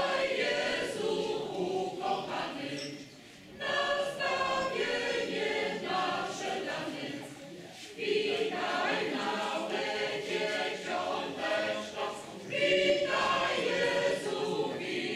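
Mixed choir of men's and women's voices singing together in sustained phrases, with brief pauses between phrases about three and about eight seconds in.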